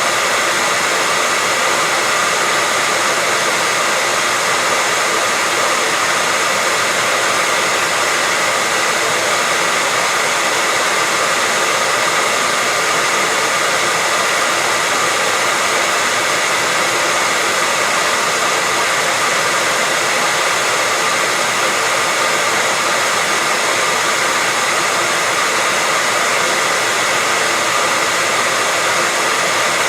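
Hair dryer running continuously: a steady, loud rush of blown air with a faint constant whine, used as white noise to lull a baby to sleep.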